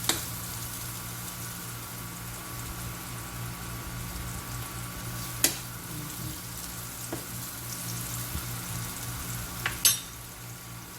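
Chopped garlic and onion sizzling in a little oil in a frying pan, with three sharp knocks of a utensil against the pan, the loudest near the end.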